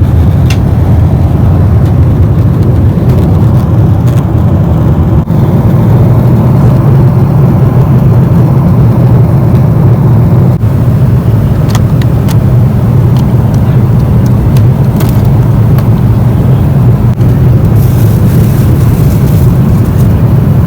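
Airliner engines and rushing air heard from inside the cabin: a loud, steady low rumble.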